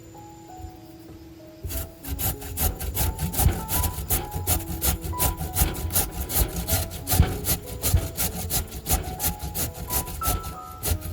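Food being grated by hand, rapid regular scraping strokes about four or five a second, starting about two seconds in, over background music.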